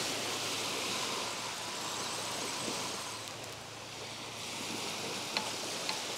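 Steady wash of small sea waves on a sandy beach, with two faint clicks near the end.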